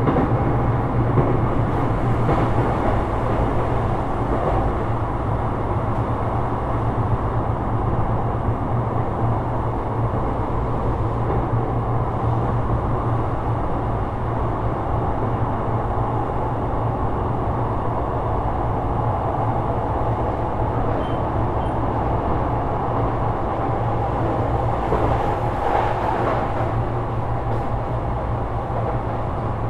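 Sotetsu 12000 series electric train with Mitsubishi IGBT-VVVF control, running steadily along the line: continuous rumble of wheels and motors heard from on board, briefly a little louder about 25 seconds in.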